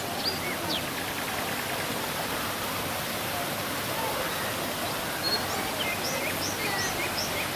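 Waterfall rushing steadily, with birds chirping over it: a couple of short slurred notes in the first second and a quick series of about four rising chirps near the end.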